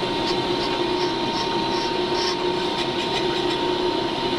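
FMC bench brake lathe running with a brake rotor spinning on its arbor: a steady hum with a constant whine, and faint regular ticking about two or three times a second in the first half.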